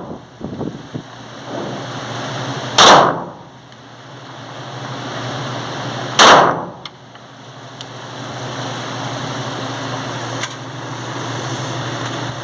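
Two 9mm pistol shots from a Glock 17, about three and a half seconds apart, each with a short ringing tail, over a steady low hum.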